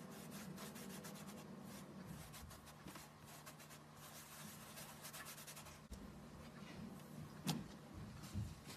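Fingertip rubbing gold pigment powder into the surface of a block of dark slime: a faint, fine scratching, with a couple of louder soft squishes near the end as fingers press into the slime.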